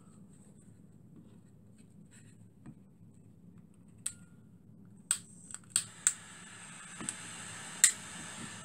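Handheld butane torch being lit: its igniter clicks sharply about six times, and about five seconds in the flame catches and a steady hiss builds.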